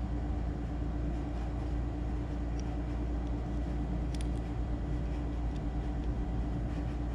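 Steady low background hum with a faint steady tone, like a running fan or other machine in a workshop, and a few faint small clicks about four seconds in.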